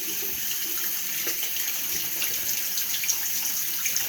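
Tap water running steadily into a sink, with faint irregular splashes as the face is washed with warm water.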